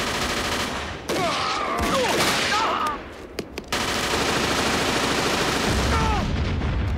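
Sustained machine-gun fire, a dense rapid rattle that breaks off briefly about three seconds in, with a few single shots in the gap. Short shouts come over it in the first half and again near the end.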